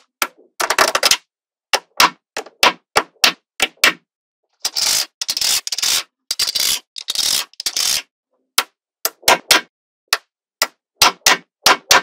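Small magnetic balls clicking and snapping together as sheets and strips of them are set onto a build, a quick run of sharp clicks with a few longer clattering stretches in the middle.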